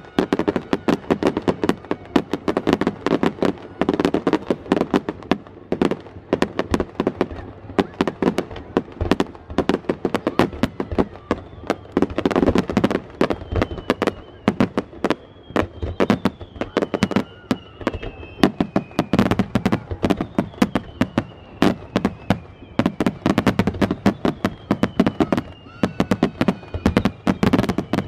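Fireworks display: aerial shells and crackling stars bursting in rapid, dense succession, with high whistling tones gliding slowly downward through the second half.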